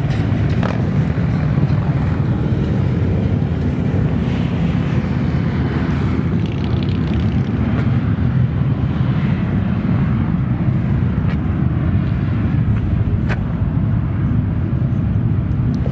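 Steady low rumble of highway traffic, motorcycles among it, with a few faint passing sweeps.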